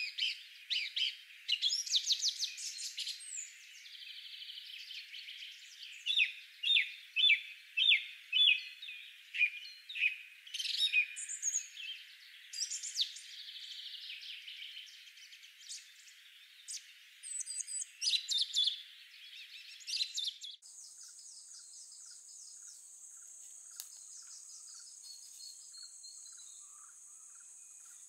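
Birds calling, a run of short, sharp chirps repeated again and again. About twenty seconds in the birds stop abruptly and a steady, high insect buzz takes over.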